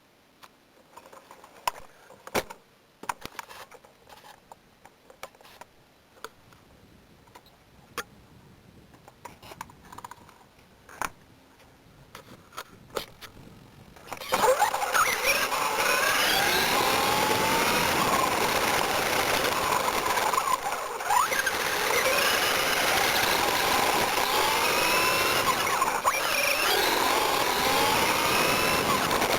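Scattered light clicks and knocks, then about halfway in an RC-10 radio-controlled buggy's electric motor and gears start whining. The whine rises and falls with the throttle over the crunch of its tyres on gravel, heard from a camera mounted on the chassis.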